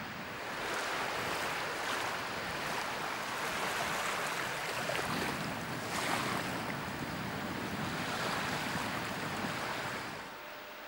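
Steady rushing of wind and small waves breaking on a sandy shore, buffeting the microphone, dropping away near the end.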